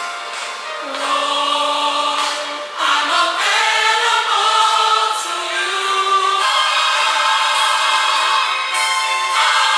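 Choir singing in a gospel style, with long held notes that change pitch every second or two.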